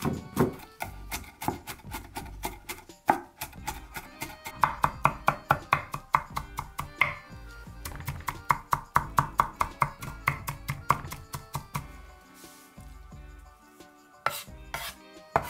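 Large knife chopping rapidly and evenly on a wooden cutting board, finely mincing red peppers, chilies and garlic by hand. The chopping stops about twelve seconds in and starts again near the end.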